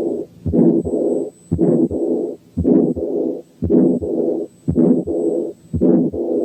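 Stethoscope recording of a calcified aortic valve. Harsh murmurs fill most of each heartbeat, about one beat a second, and the heart sounds are almost lost in them, with the second sound faint.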